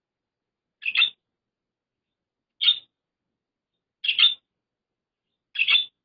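Budgerigar calling: four short, sharp chirps, about one every one and a half seconds.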